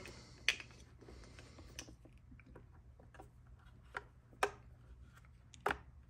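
Handling of plastic cable connectors while a Starlink Ethernet adapter is plugged into the router: a handful of separate sharp clicks and light rustles of the cables.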